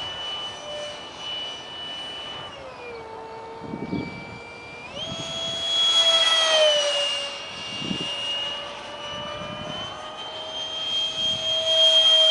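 Detrum 70mm electric ducted fan of a foam-board RC jet whining in flight. The whine drops in pitch about two and a half seconds in as the fan is throttled back, jumps back up about five seconds in, and is loudest as the jet passes around six seconds in and again near the end.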